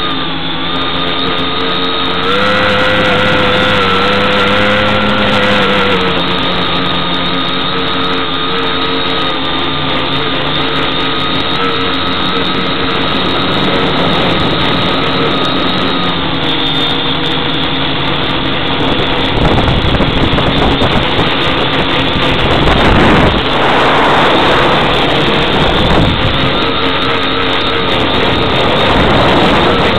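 Quadcopter's electric motors and propellers buzzing in flight, heard up close from on board. Their steady whine steps up in pitch about two seconds in and shifts again as the throttle changes. A rougher rushing noise joins in for several seconds past the middle.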